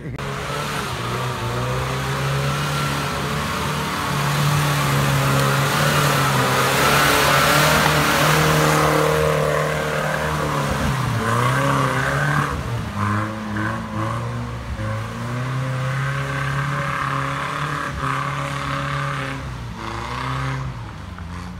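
Off-road 4x4 engine running hard at high revs as the vehicle churns through deep mud, wheels spinning and throwing mud and water. The engine note holds high, dips briefly about halfway through, then picks up again.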